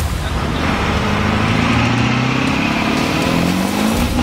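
A vehicle engine revving up, its pitch rising steadily for about three seconds.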